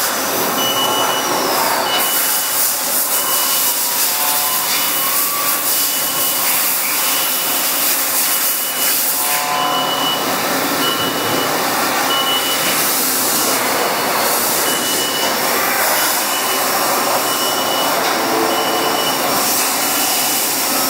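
Haas ST-10 CNC lathe running, a steady loud rushing hiss. A high whine falls in pitch about two seconds in, and a short high beep repeats about once a second throughout.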